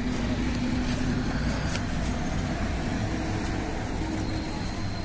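Steady low rumble of a motor vehicle engine running nearby, with a few faint clicks.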